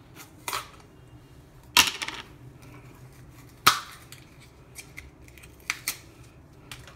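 A new plastic mayonnaise jar being opened: a handful of sharp clicks and snaps from the plastic lid and seal, two louder ones about two seconds apart.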